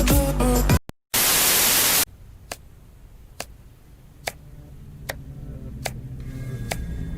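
Music cuts off about a second in, followed by a loud burst of static-like hiss lasting about a second. After it come faint, evenly spaced clicks a little under a second apart over a low hum that slowly gets louder.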